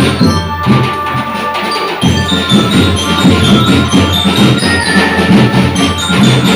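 School drum band music: fast, dense drum strokes under a bell-like melody, with the sound growing fuller about two seconds in.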